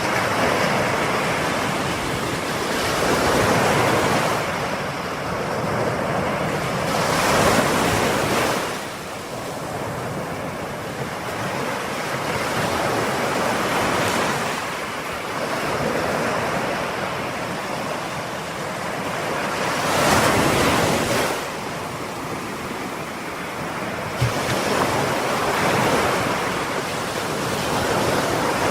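Ocean waves breaking on a shore, a steady wash of surf that swells and eases every few seconds, with a stronger wave breaking about twenty seconds in.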